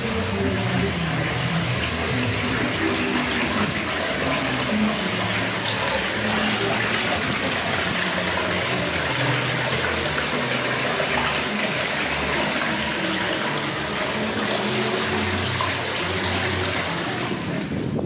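Water pouring from several spouts into a stone basin, a steady splashing.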